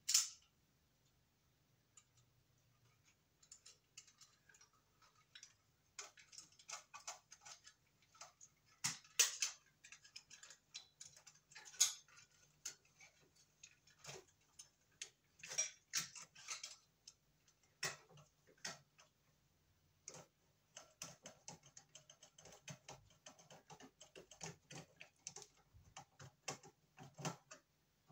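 Irregular small clicks, taps and scrapes as Romex cable is fed through its connector into the plastic junction box of a canless LED recessed light and the box is handled. They are sparse at first and come thick and fast from a few seconds in.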